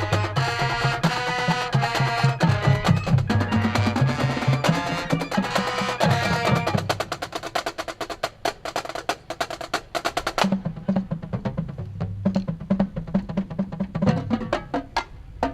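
High school marching band playing its show: the full band with melody for the first half, then about seven seconds in the melody drops away and the percussion section carries on with rapid, crisp drum strikes and low pitched drum notes.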